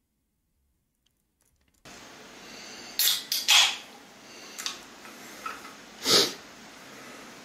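A man close to the microphone breathing out or sniffing in several short, noisy bursts over a faint steady hiss, after near silence at the start; the loudest burst comes near the end.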